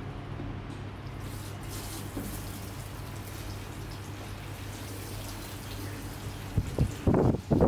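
Water spraying from a handheld shower head onto hair at a shampoo basin, a steady hiss, turning louder and more uneven splashing near the end as hands work the wet hair under the spray.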